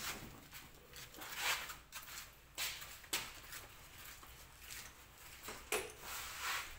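Scattered light knocks, clatter and rustling from parts and tools being handled, a handful of brief irregular sounds with quiet between them.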